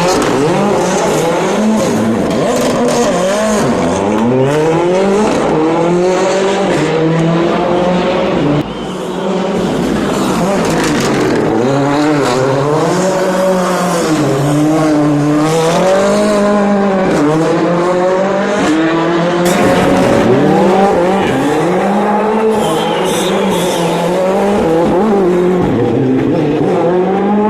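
Rally car engine revving hard and easing off over and over, its pitch climbing and falling repeatedly as the car accelerates and brakes through the corners.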